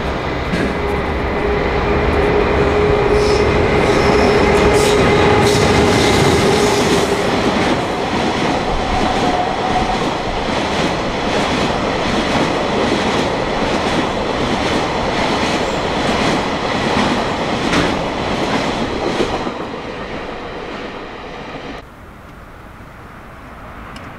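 Freight train of tank wagons hauled by an EH500 electric locomotive running close by, loud, with a steady tone in the first few seconds and wheels clicking over the rail joints as the wagons roll past. Near the end it fades a little, then drops abruptly to a much quieter background.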